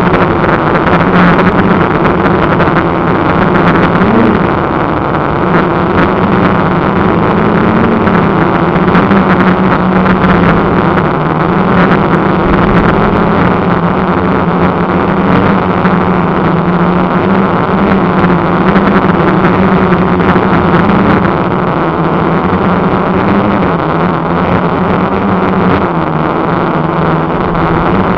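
Quadcopter's electric motors and propellers, heard from the camera mounted on the craft: a loud, steady buzzing hum whose pitch wavers slightly up and down with throttle changes in flight, with a rush of air over it.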